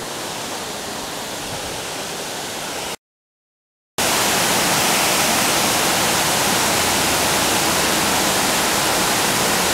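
Steady rush of water pouring over an old mill dam spillway. It drops out completely for about a second around three seconds in, then returns louder and steady.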